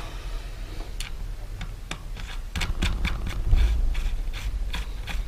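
Light metallic clicks and ticks as a lock nut is turned by hand onto the axle of a Sturmey-Archer three-speed hub, sparse at first and coming more often from about halfway through.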